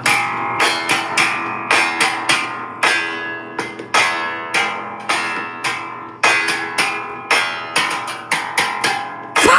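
Guitar music: chords strummed in a steady rhythm, about two strokes a second, each ringing out before the next.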